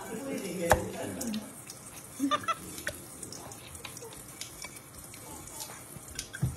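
A thin stream of water squirted from a squeeze bottle into a steel tumbler at a kitchen sink, running as a steady faint trickle. A sharp knock comes about a second in, and a low thump comes near the end.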